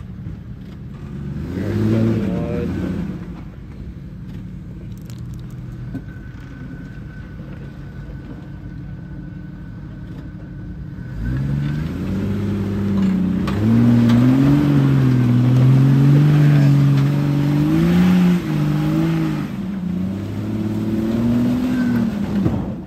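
Jeep Cherokee XJ engine revving under load as it climbs a steep, muddy hill: a short rev about two seconds in, then from about halfway a long stretch of hard revving, the pitch rising and falling with the throttle, until just before the end.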